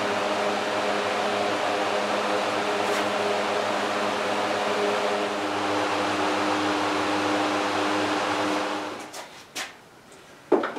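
Electric fans running steadily: an even rush of air over a constant motor hum. It cuts off about nine seconds in, and a couple of light knocks follow.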